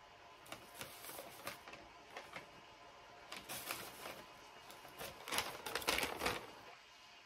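Faint, irregular clicking and rustling, busiest about five to six seconds in.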